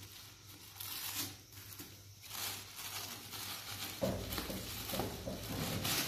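Plastic sheeting crinkling and a cloth strip rustling as the strip is pulled and knotted tightly over a plastic-covered pot lid, in several bursts that get busier in the second half. A low steady hum sits underneath.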